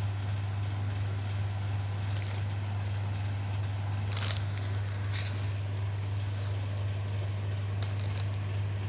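Steady low electrical hum, with a few faint light clicks and scrapes about two, four, five and eight seconds in.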